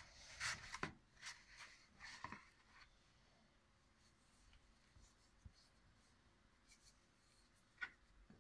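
Hands kneading a soft yeast dough in a plastic bowl: faint pushes, rubs and scrapes of dough and flour against the bowl, mostly in the first few seconds, with one small click near the end.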